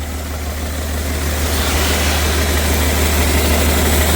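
BMW 330d's M57 straight-six diesel running at idle, down on two or three cylinders with a blown turbo. About a second and a half in it gets louder, with more hiss.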